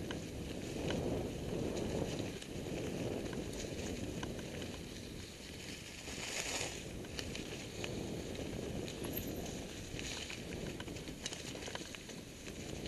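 Mountain bike riding fast down a dry dirt trail, heard from a helmet-mounted camera: a steady rumble of tyres rolling over dirt and leaves, with many sharp rattles and clicks from the bike, and a brief hiss about halfway through.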